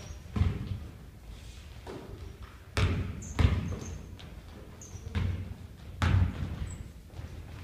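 Basketball bouncing on a wooden gym floor: about five irregular thuds that echo around the hall, with a few short high squeaks of sneakers on the court between them.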